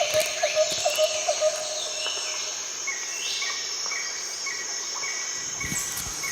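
Rainforest ambience: a steady high insect drone, with a quick run of low chirps (about five a second) that stops about a second and a half in. Bird calls sweep over the top, and from about three seconds in there is a series of short repeated piping notes, about three a second.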